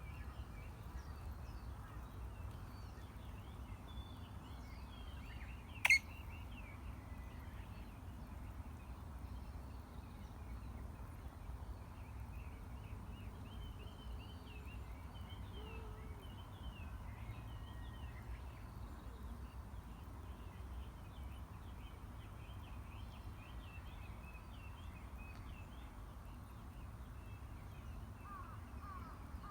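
Faint bird chirps over a steady low rumble of outdoor background noise, with one sharp, very brief sound about six seconds in.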